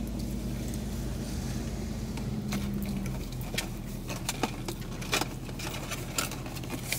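Steady low hum of a car running, heard from inside the cabin, with scattered light clicks and rattles from about halfway on.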